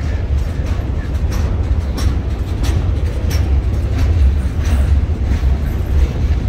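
CSX freight train's boxcars rolling past: a steady low rumble with repeated sharp clacks of steel wheels on the rails.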